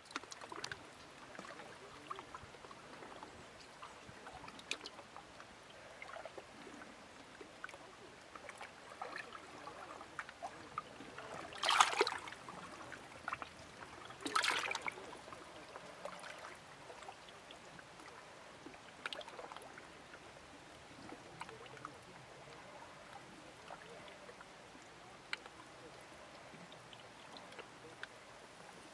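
Calm sea water lapping and trickling gently at the shore, with small scattered clicks and gurgles, and two louder splashes about twelve and fourteen and a half seconds in.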